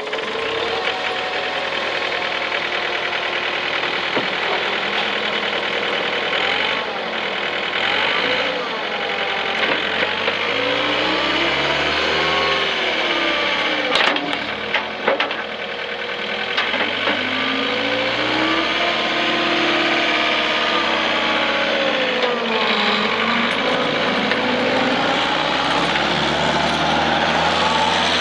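Diesel engine of a 2012 John Deere 323D skid steer running, its pitch rising and falling as it is revved up and down, with a few sharp clanks about halfway through.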